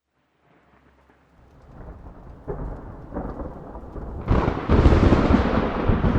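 A rumbling, rushing noise like thunder and rain that fades in from silence, builds slowly, and becomes much louder about four seconds in.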